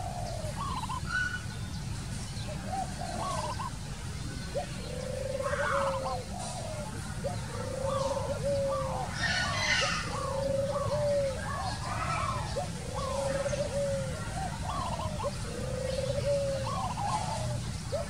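Spotted dove cooing: a long, low, slightly arched coo about every two and a half seconds, starting about four seconds in, with short higher bird chirps between and a steady low rumble underneath.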